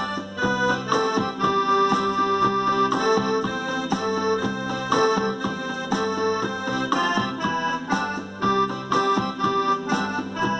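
Accordion music: a quick melody of held, changing notes over steady bass notes.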